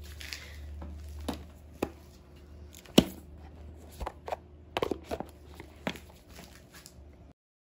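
A series of light clicks and knocks, with one sharp knock about three seconds in, over a low steady hum. The sound cuts off abruptly near the end.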